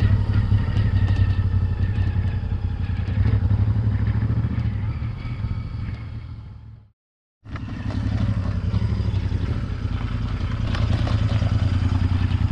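Royal Enfield motorcycle-and-sidecar outfit running at low speed, its engine a steady low note. The sound fades down about six seconds in and breaks off into a moment of silence, then the engine is heard running again.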